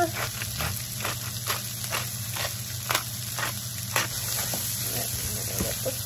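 Hand pepper grinder being twisted over a frying pan, giving a string of short crunching clicks at irregular intervals of about half a second, over the steady sizzle of mushrooms, corn and onion sautéing in butter.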